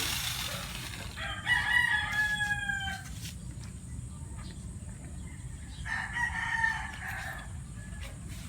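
A rooster crowing twice: a long crow about a second in that sags slightly in pitch at the end, then a shorter crow near the end.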